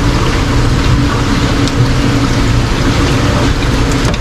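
Drain water from a reef aquarium pouring steadily into the sump through a clean filter sock, with a low steady hum underneath. With the sock clean, the water passes through it instead of overflowing.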